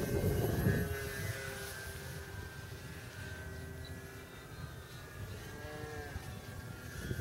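Electric brushless motor and propeller of a Multiplex FunCub RC plane in flight, giving a steady whine that shifts in pitch briefly about five and a half seconds in. Wind buffets the microphone in the first second.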